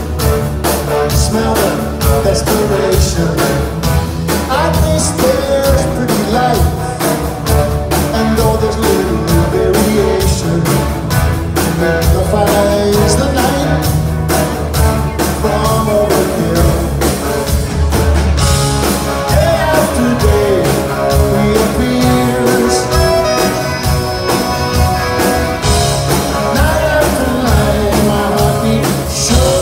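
Rock band playing live: drum kit, bass and electric guitar driving a steady beat.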